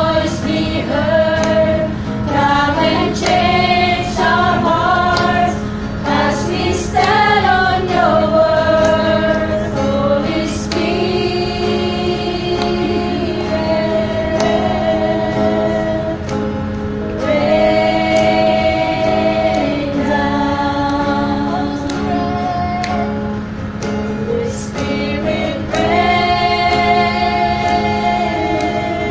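A small group of women singing a slow Christian worship song together in long held notes, with an acoustic guitar accompanying.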